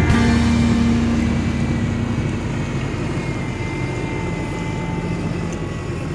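SUV engine running as it drives across sand: a steady low drone with faint high whining tones, slowly fading.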